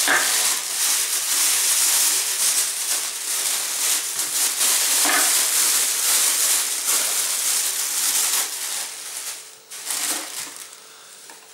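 Plastic bag crinkling and rustling as it is handled and unwrapped, continuous and fairly loud, dying down near the end.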